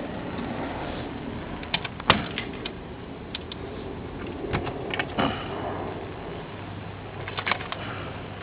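Scattered sharp clicks and light knocks of hands handling hard objects, the sharpest about two seconds in and a cluster around five seconds.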